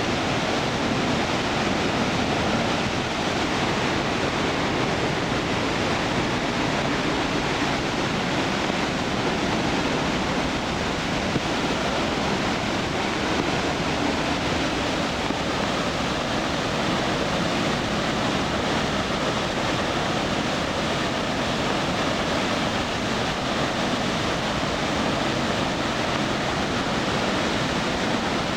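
Nunobiki Ondaki waterfall pouring down in a steady, unbroken rush of falling water, running full after typhoon rain.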